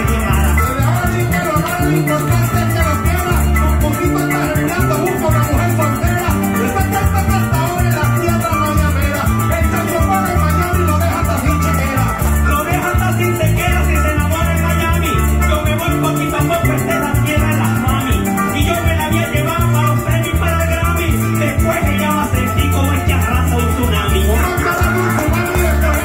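Live llanero joropo music: a llanero harp and a cuatro plucking fast running patterns over a driving bass line, with maracas shaking steadily.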